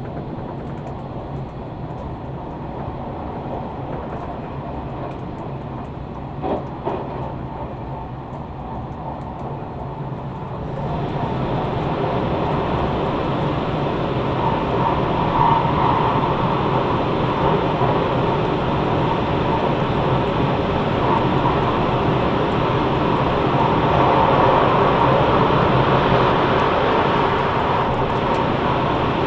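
Train running at speed, heard from inside the carriage as a steady rumble of wheels and rushing air. About ten seconds in it suddenly gets louder and brighter as the train enters a tunnel.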